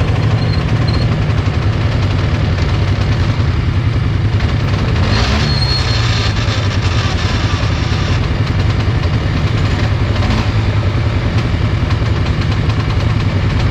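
ATV engines idling steadily, with a brief rise and fall in pitch about five seconds in.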